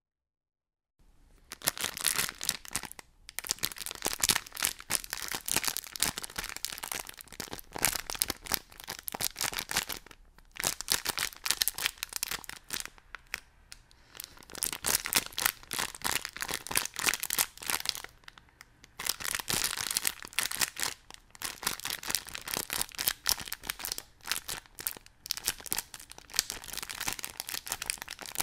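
Dense crackling, crinkling noise in long phrase-like runs broken by brief pauses. It serves as the voice of a monster puppet whose words are given only as subtitles.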